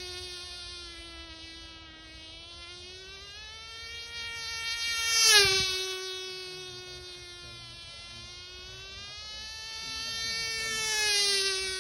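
Cox TeeDee .020 single-cylinder two-stroke glow engine on a small model airplane, buzzing at high revs in flight. Its pitch rises as it approaches, and it grows loud and drops sharply in pitch about five seconds in as it passes close by, then swells again near the end.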